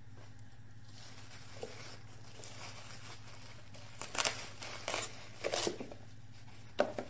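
Short rustling scrapes and knocks of chopped green bell pepper and a wooden cutting board at a glass mixing bowl, as the pieces are slid into the bowl; four short bursts in the second half, the last the sharpest, over a faint steady low hum.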